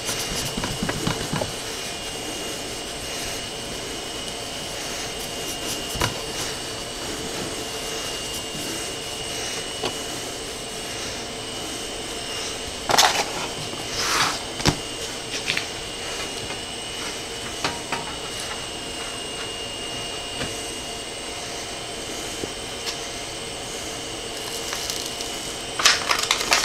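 Steady fan hum with a faint high whine. Cloth wipes on a thin steel plate in the first second or two, and short handling rustles and knocks come about 13 and 14 seconds in and again near the end.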